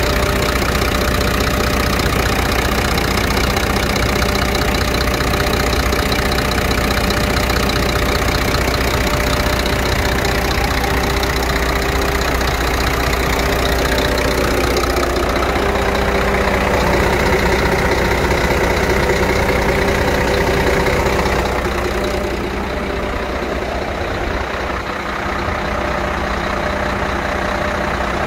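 Scania P114 380's 11-litre inline-six diesel idling steadily, heard close up in the open engine bay. It grows a little quieter in the last few seconds as the microphone moves away from the engine.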